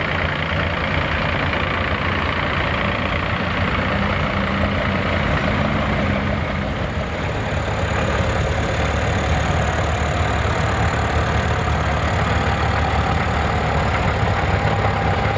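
Several vintage tractor engines running steadily at low revs as they move slowly, the nearest being a small Cletrac crawler tractor on steel tracks.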